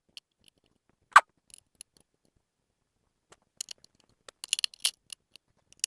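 Small metal bolts and tools being handled while fitting a laser marking machine's stand: scattered light clicks and taps, one sharp click about a second in and a quick cluster of clicks in the second half.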